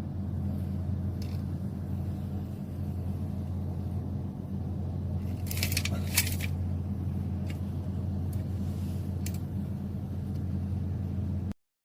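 A steady low mechanical hum, with a brief cluster of metallic clinks and rattles about halfway through and a few single clicks.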